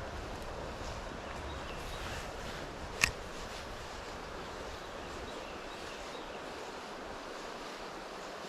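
Steady rushing of river water. A low rumble of wind on the microphone fades about halfway through, and a single sharp click comes about three seconds in.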